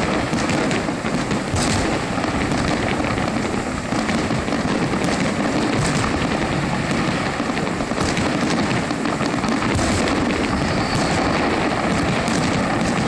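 Fireworks finale: a dense, continuous barrage of shells bursting, many bangs and crackles overlapping without a break, with a few sharper cracks standing out.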